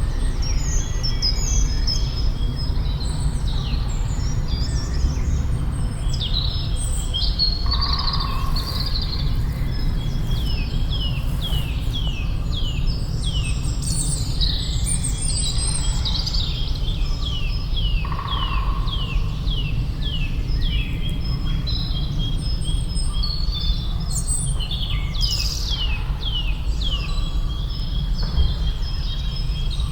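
Several wild birds singing and calling, with runs of quick downward-sliding notes at about two or three a second, over a steady low rumble.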